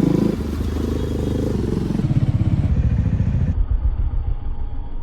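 KTM RC 200's single-cylinder engine running at low revs through its exhaust, a rapid, even pulse.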